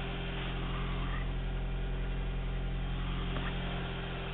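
Steady low hum made of a few even low tones, unchanging throughout.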